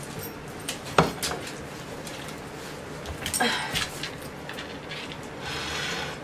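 A glass plate clinks down sharply onto a kitchen countertop about a second in. It is followed by scattered clicks and scrapes of the plate and a dog's claws on the counter.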